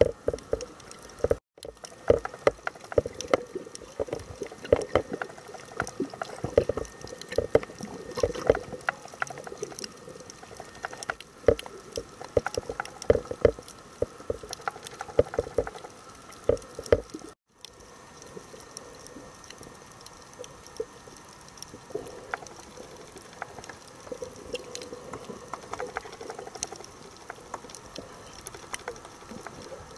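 Water noise picked up by a camera filming underwater: gurgling and sloshing with many sharp clicks and crackles throughout. The sound cuts out completely for a moment twice, about a second and a half in and just past halfway.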